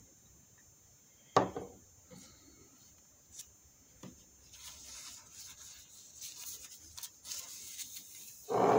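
Coffee cup and saucer being handled: a sharp knock about a second and a half in, a few small clicks, then rubbing and scraping, and a louder dull knock at the very end.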